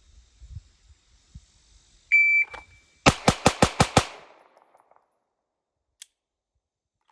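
A shot timer gives one short beep, and about a second later a pistol fires six rapid shots in about one second, the string finishing about 1.86 s after the beep.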